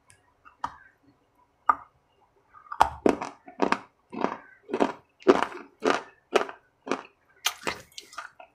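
Close-up chewing of a crunchy food: a couple of sharp cracks, then steady crunching bites about twice a second from about three seconds in.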